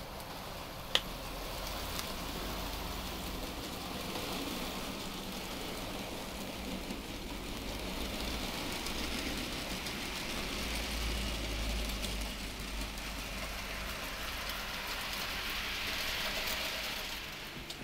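00 gauge model Class 26 diesel locomotive and goods wagons running along the track: a steady rattling hiss of small wheels on rail, growing louder as the train passes close. A single sharp click about a second in.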